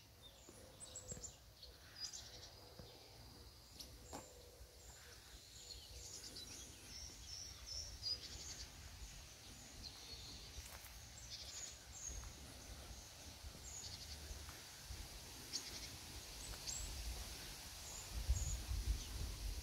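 Small birds chirping and singing in short high notes throughout, over a faint low rumble that grows louder near the end.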